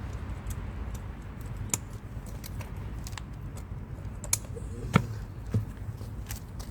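Scattered, irregular light clicks and taps of metal hand tools and mounting hardware being handled, with a sharper knock a little before five seconds in, over a steady low background rumble.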